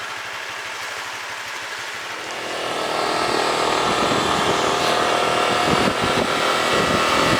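Small motorcycle engine running, growing louder about two and a half seconds in and then holding steady, with wind noise.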